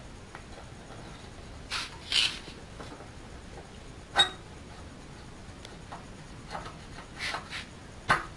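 Steel die plate and fittings of a pellet mill being handled by hand: a few short metal scrapes, and one sharp ringing clink about four seconds in.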